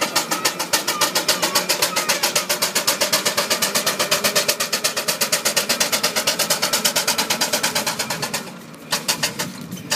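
Miniature Burrell steam traction engine working under way, its exhaust chuffing in rapid, even beats. The beats fall away briefly near the end.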